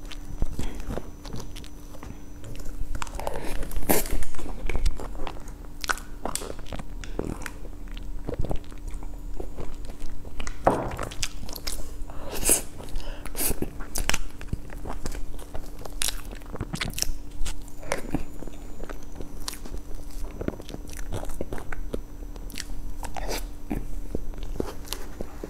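Close-miked eating sounds of soft cream cake: wet mouth smacks and chewing, with the spoon scooping and clicking in the paper tub, at irregular moments throughout. A faint steady hum underlies it.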